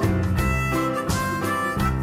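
Upbeat background music with a steady beat: a melody of held notes over a bass line.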